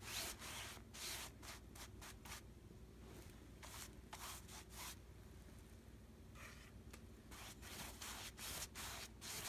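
Paintbrush stroking paint onto upholstery fabric: faint scratchy rubs in quick runs of about three a second, broken by short pauses.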